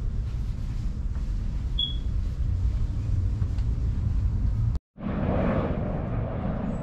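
Low, steady rumbling background noise, broken by an abrupt dropout about five seconds in, after which the background changes to a brighter mix.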